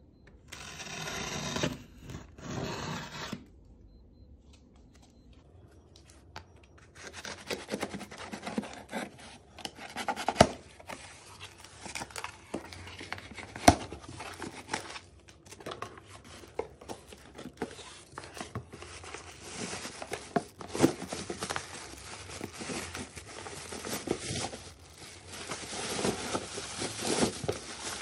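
A snap-off utility knife slices packing tape on a cardboard box in two long strokes. After a pause come continuous cardboard scraping and rustling, with sharp clicks, as the knife cuts the tape on an inner box. Near the end a plastic bag crinkles louder as it is handled.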